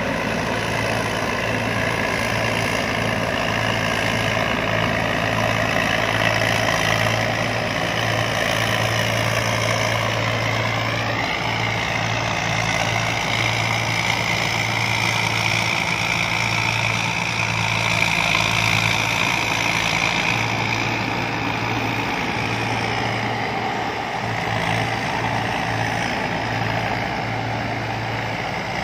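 Combine harvester running steadily: a constant engine hum with a higher mechanical whine over it that wavers briefly in pitch about a third of the way in.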